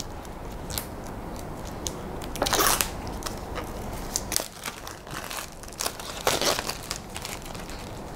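Packaging on a cardboard product box being cut and torn open: scratchy rustling and crinkling, with two louder rips about two and a half and six and a half seconds in.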